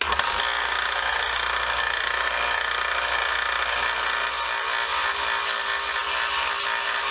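A 1x30 belt sander running steadily while it sands the wooden handle of an old screwdriver, a constant hissing grind over the motor's low hum.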